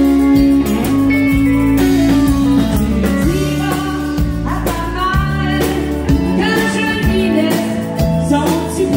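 A live country band playing, with guitar, bass guitar and drums. A woman sings lead into a microphone, her voice coming in about four seconds in.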